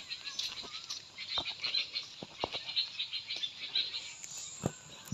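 A dense background chorus of rapid, high-pitched calls from small animals, with a few sharp clicks and knocks scattered through it. A steady high hiss joins about four seconds in.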